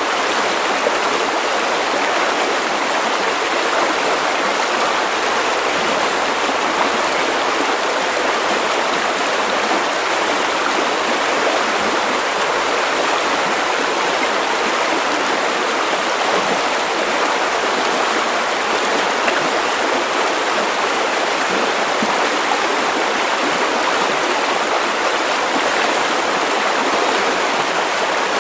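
River water running steadily over stones, an even, unbroken rushing babble.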